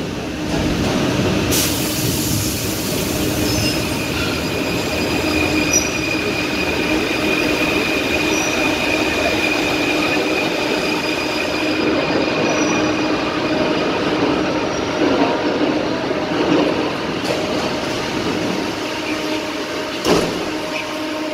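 Paris Métro MF01 train on Line 5 pulling into a station and braking to a stop: steady running noise with a whine and squealing steel wheels. A short sharp clunk near the end as the doors open.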